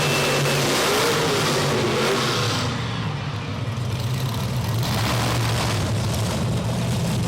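Monster truck engine running and revving, its low hum wavering slightly in pitch, with a slight drop in loudness about three seconds in.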